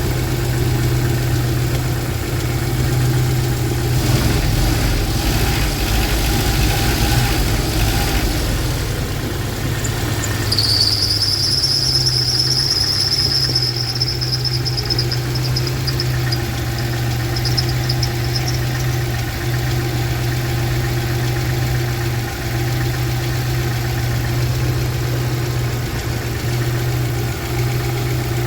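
Jeep Wrangler YJ's AMC 150 inline-four engine idling steadily. About four seconds in comes a hissing rush. About ten seconds in a high-pitched whistle from the accessory drive belt starts suddenly, climbs slightly, then fades out in pulses after about eight seconds.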